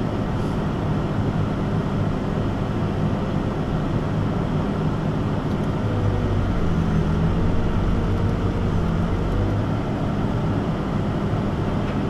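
Excavator's diesel engine running steadily, heard from inside the cab. About halfway through there is more low rumble for a few seconds.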